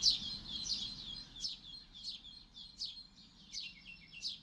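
Small birds chirping: a quick series of short chirps, each falling in pitch, about four a second, growing fainter.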